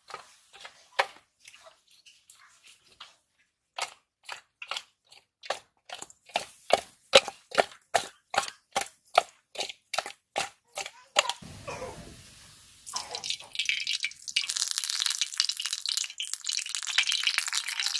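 Raw fish pieces being mixed by hand with salt and turmeric in a steel bowl, slapping and squelching against the metal in a steady rhythm of two or three strokes a second. After about thirteen seconds, hot oil in a black wok begins to sizzle and crackle, growing louder near the end as it comes up to frying heat.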